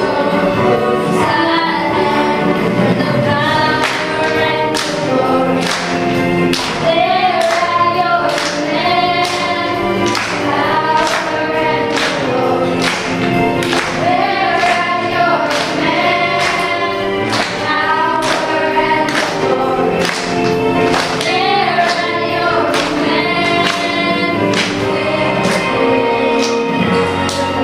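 Cast of a stage musical singing together into handheld microphones, over musical accompaniment with a steady beat of about two strokes a second.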